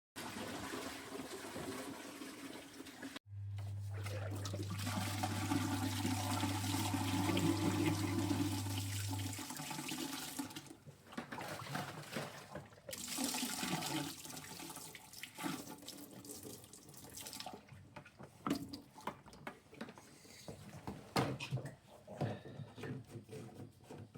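Waste liquid pouring and splashing out of a Thetford C250 cassette toilet tank's spout into a disposal drain. The sound is cut into several segments, with a steady low hum under the pour for a few seconds early on. Near the end the flow breaks into irregular glugs as the tank empties.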